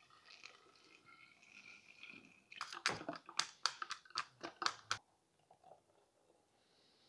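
Blended kombucha pouring faintly through a plastic funnel into a glass bottle, then a quick run of sharp clicks and taps as a long utensil pokes at the undissolved candy bits clogging the funnel.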